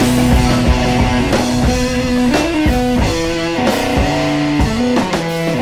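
Rock music led by guitar, with drum hits and no singing.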